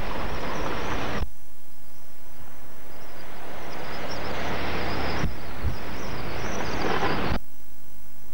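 Strong wind rushing and buffeting the microphone, a steady roar of noise with heavy low rumble, changing abruptly about a second in and again around five and seven seconds.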